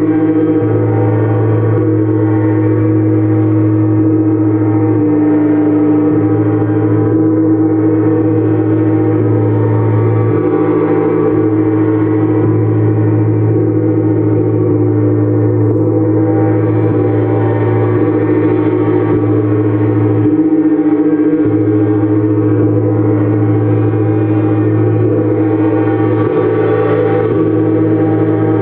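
Gongs played as a continuous, sustained wash of overlapping ringing tones. No single strike stands out, and the lower tones shift in pitch and strength every second or two.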